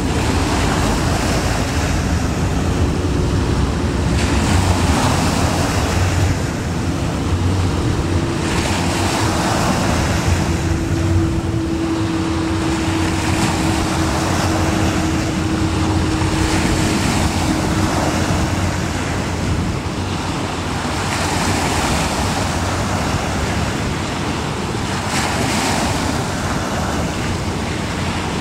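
Sea water washing in, swelling every few seconds, with wind buffeting the microphone and a low rumble. A faint steady hum runs through the first half and stops about two-thirds of the way in.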